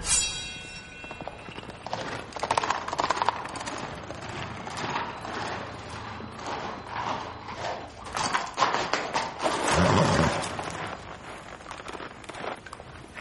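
Horse's hooves clip-clopping on the ground, a run of irregular hoof strikes.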